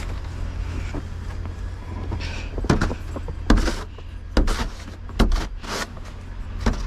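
A series of about six sharp knocks and thumps, irregularly spaced, over a steady low rumble.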